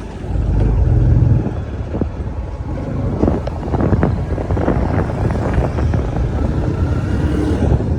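Motor vehicle traffic: engines running with a steady low rumble that swells about a second in, and scattered short knocks throughout.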